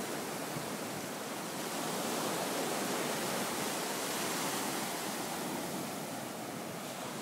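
Ocean surf breaking and washing up the sand: a steady rush that swells about two seconds in and eases slightly near the end.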